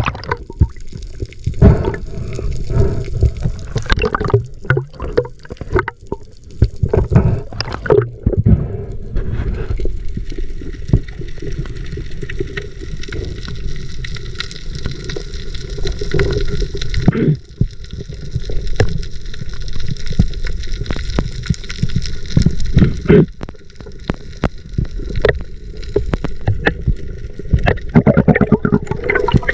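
Water gurgling and sloshing close to the microphone, with frequent knocks and clicks throughout.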